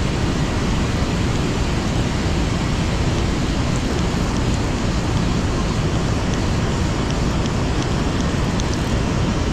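Steady rush of river water pouring over a low-head dam spillway, an even noise that holds without a break, with a few faint light ticks in the second half.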